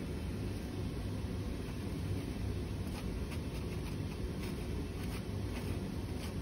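A metal spatula scratching dried sand off filter paper, a run of faint scrapes about halfway in, over a steady low background rumble.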